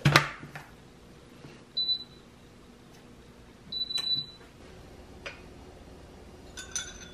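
Jenniferoom mini rice cooker: its lid clicks shut, then its electronic control panel gives a short beep and, about two seconds later, a longer beep at the same pitch as the cooking program is started. Near the end comes a light clink of glass.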